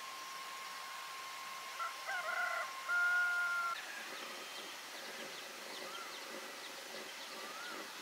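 A rooster crows about two seconds in, ending on a held note. A steady high tone underneath stops as the crow ends, and a few short rise-and-fall bird chirps follow.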